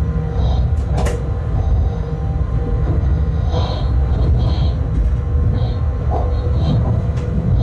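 Bombardier TRAXX class 186 electric locomotive on the move, heard in its cab: a steady low rumble from the wheels and running gear, with a sharp knock about a second in and lighter clicks as it runs over pointwork.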